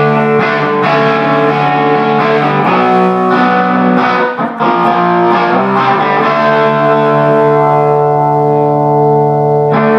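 Overdriven electric guitar played through a 10-watt 6AQ5 valve amplifier (GR Amplifiers JKD). A few chords change in the first half, then one chord is held ringing for several seconds and struck again near the end.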